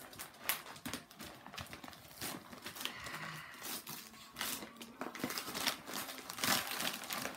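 Gift wrapping paper crinkling and tearing as a present is unwrapped by hand, in a run of irregular crackles.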